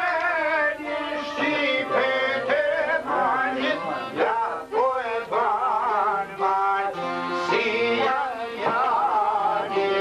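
Men singing an Albanian folk song in a high, ornamented style with wavering held notes, accompanied by plucked long-necked lutes.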